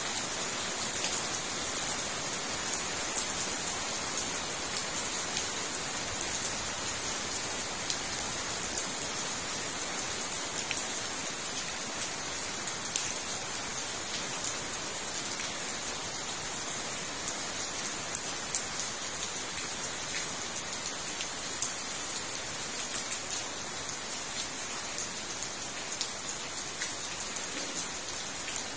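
Steady rain falling on a fish pond, leaves and wet paving, an even hiss scattered with many small individual drop impacts.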